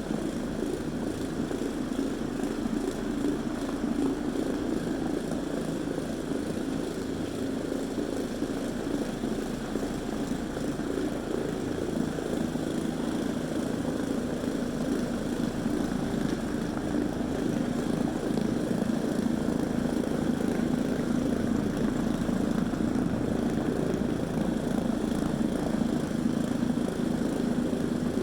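TRS Phoenix floor machine's electric motor running steadily as it scrubs a rubber mat with a microfiber pad.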